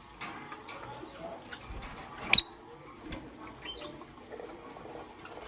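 Lovebird giving short, high-pitched chirps and squeaks. The loudest chirp comes about two seconds in, with smaller ones around it.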